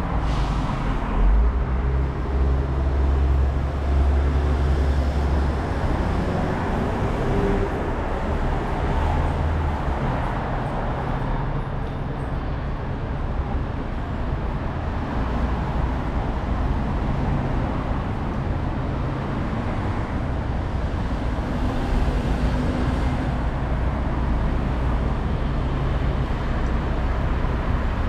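City street traffic: motor vehicles running and passing, with a low engine hum loudest in the first five seconds or so.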